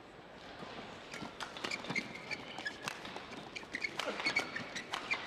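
Badminton rally: rackets striking the shuttlecock and players' shoes thudding and squeaking on the court, a quick run of sharp clicks and short squeaks.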